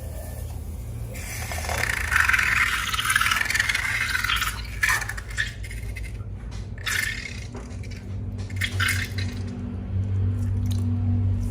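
Wet pouring and scraping of slime ingredients in a container, strongest in the first few seconds, then scattered clicks, over a steady low hum.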